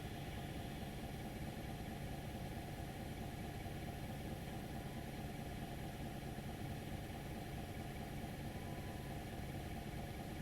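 A Mazda 2.0 petrol engine idling warm, heard from inside the closed cabin as a faint, steady low hum.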